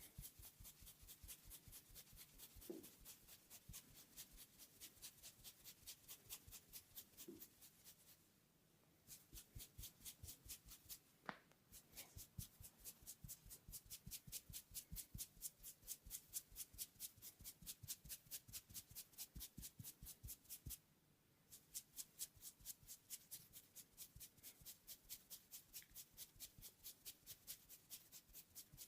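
Faint, rapid, even tapping of a masseur's hands in a head massage, about four taps a second, pausing briefly twice.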